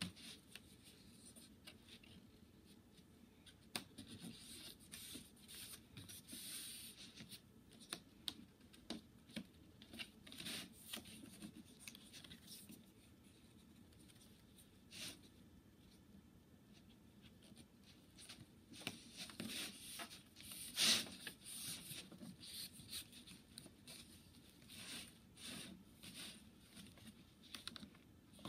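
Stiff flax leaf strips scratching and rustling as they are folded and slid under the woven mat by hand and with a tool, with scattered light clicks and ticks. The sharpest click comes about two-thirds of the way through.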